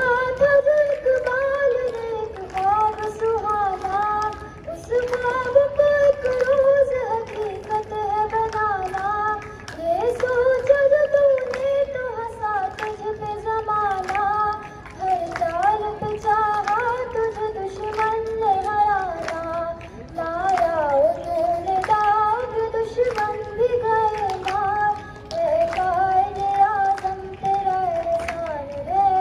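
A girl singing solo into a microphone: one melodic line in long, held phrases with short pauses for breath.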